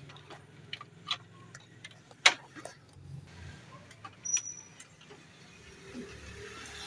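Plastic clicks and knocks as a Xerox 5855/5755 photocopier's corona assembly is slid into its slot, with one sharper knock about two seconds in and a brief high squeak about four seconds in. The assembly goes in easily, a sign that its fitting problem is cured.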